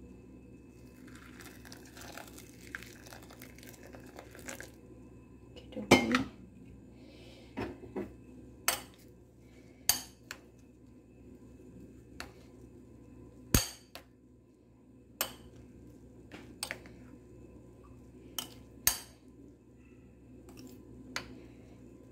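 Hot water poured into a white bowl of instant oats for a few seconds, then a metal spoon stirring the oatmeal and clinking against the bowl, about ten sharp knocks at irregular intervals.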